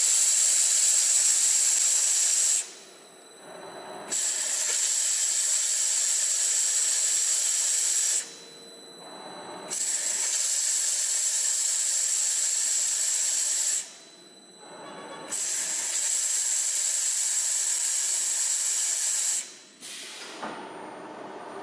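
Double-shaft automatic roll cutting machine slicing tape log rolls: a loud, steady hiss with a thin high whine. It runs in four cuts of about four seconds each, with quieter pauses of about a second and a half between them as the cutter indexes to the next position.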